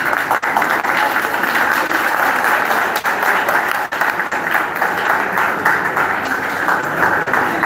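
A crowd applauding, with dense, sustained clapping.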